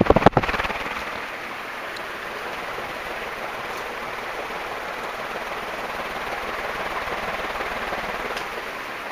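Banvil Gold Line 36-inch industrial ceiling fan with curved metal blades running at medium speed: a steady, pretty loud whoosh of the blades, a helicopter sound. A few sharp knocks come in the first half second.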